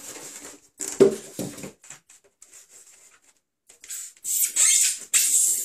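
Polystyrene foam packing pieces being handled and lifted out of a cardboard box: a knock about a second in, then loud squeaky scraping of foam rubbing on foam near the end.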